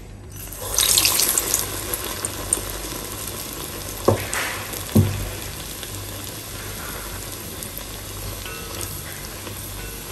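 Urad dal vada batter dropped into hot oil in a cast iron kadai: a loud burst of sizzling about half a second in that settles into a steady deep-frying sizzle. Two sharp knocks about four and five seconds in.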